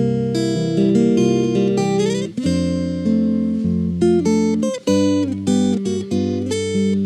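Background music on plucked acoustic guitar, a flowing melody of picked notes with a note sliding up in pitch about two seconds in.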